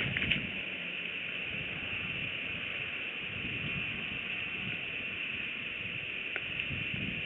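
Wind rumbling unevenly on an outdoor nest-cam microphone over a steady hiss, with a brief rustle and a few light clicks in the first half second as a bald eagle lands on the stick nest.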